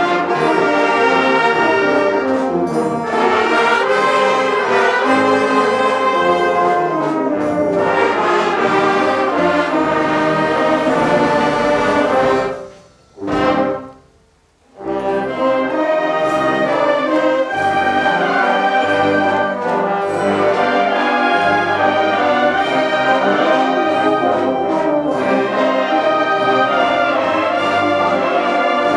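Oaxacan banda filarmónica, a wind band of clarinets, saxophones, flutes, trombones, euphoniums and sousaphones, playing a piece together. About halfway through, the music breaks off for about two seconds, then resumes.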